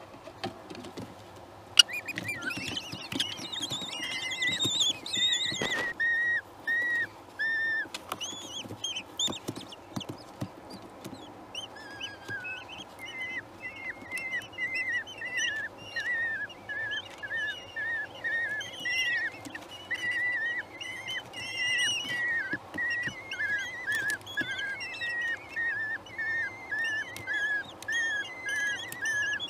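Common kestrel chicks begging as they are fed in a nest box: a long run of short, high, arched calls at about two a second, with a denser burst of shriller calls early on. A sharp knock sounds about two seconds in, and small scratches and clicks from movement on the nest floor run underneath.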